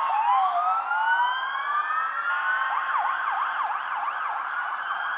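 Emergency vehicle siren sounding: a slow wail that dips and then rises, switching about two and a half seconds in to a fast yelp that rises and falls about three times a second.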